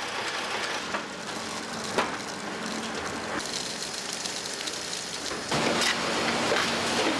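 Automated ballpoint-pen assembly machinery running: a steady mechanical clatter with a few sharp clicks, getting louder about five and a half seconds in.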